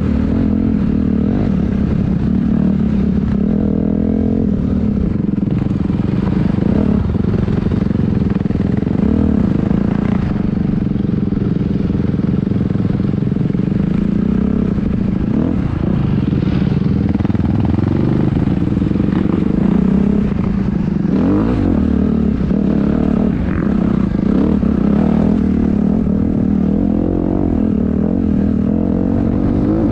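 Dirt bike engine running under constantly changing throttle as the bike is ridden over a rough trail, its pitch rising and falling.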